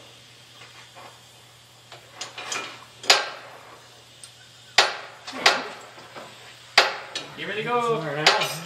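Sharp metal-on-metal clanks that ring out, about four of them a couple of seconds apart, from work on a seized part of a Model A Ford front axle in a press. A short voice, like a laugh, comes just before the last clank.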